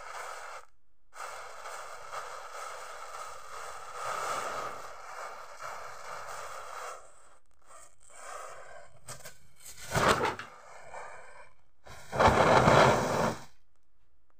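Standing matchsticks flaring with a steady hiss as they catch one after another. Near the end a small firecracker goes off: a short loud burst about ten seconds in, then a louder, harsh burst lasting over a second about two seconds later.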